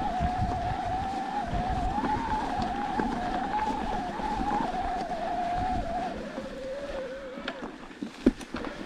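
Electric mountain bike's motor whining under load on a steep climb, its pitch dropping a little about six seconds in. A sharp knock near the end.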